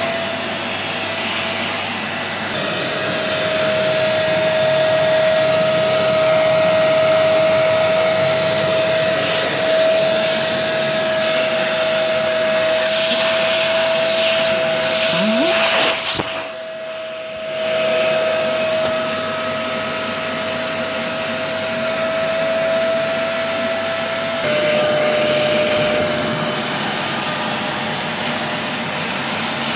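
Parkside PNTS 1500 C4 wet/dry shop vacuum running steadily with a constant motor whine while sucking up workshop dirt, with debris crackling through the hose around the middle. Just after that it briefly goes quieter for a second or so, then returns to its full sound.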